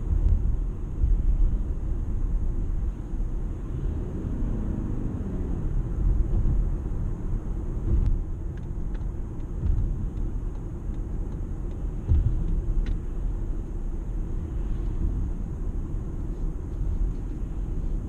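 Toyota Camry Hybrid on the move: a steady, low road and tyre rumble with a brief rise and fall in pitch about four seconds in.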